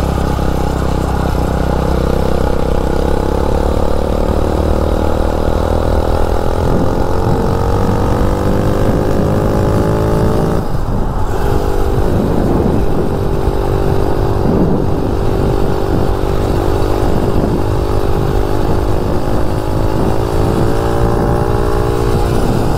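Mini bike's 250cc dirt bike engine pulling under full throttle during a top-speed run, its revs climbing steadily. About ten seconds in the revs drop briefly as it shifts up a gear, then climb again more slowly. Low wind rumble on the microphone underneath.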